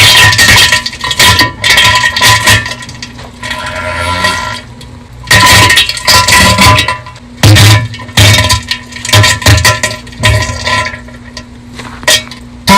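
Bass-boosted diarrhea sound effect: a string of loud, distorted, spluttering bursts with deep thuds under them.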